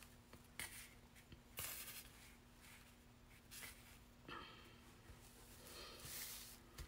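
Near silence with a faint steady hum, and a few soft brief rustles of a thin paper napkin being handled and moved around on a wooden surface.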